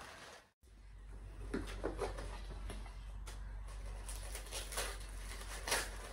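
Faint handling sounds of a small gift box being opened: a few light clicks and knocks over a low steady hum, with the sharpest knock near the end.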